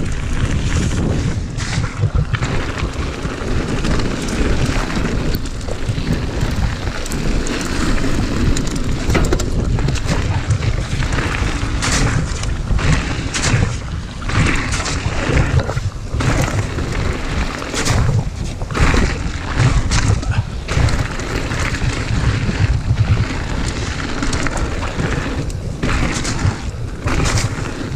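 Wind buffeting a chest-mounted camera's microphone as a mountain bike descends gravel singletrack at speed, with a heavy rumble. Tyres crunch over loose stones and the bike rattles in frequent short knocks.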